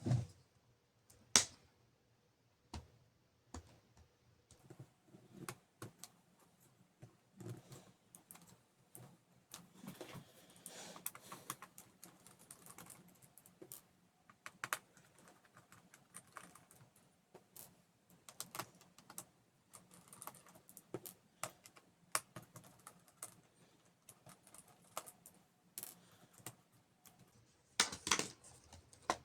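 Faint, irregular clicks and taps of a small screwdriver and plastic and metal laptop parts being handled as a Lenovo IdeaPad 330's battery is unscrewed and disconnected inside the opened case, with one sharper click about a second and a half in and a quick run of clicks near the end.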